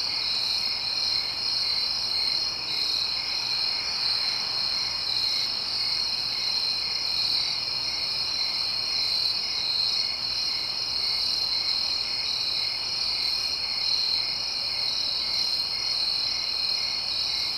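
Night chorus of crickets: a steady high trilling, with a second, lower chirp pulsing a few times a second underneath.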